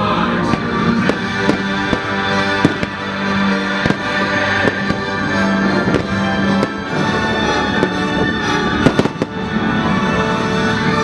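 Fireworks show: repeated, irregular bangs of fireworks bursting over the show's music soundtrack playing from loudspeakers.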